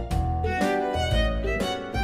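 Background music: a violin melody over a pulsing bass.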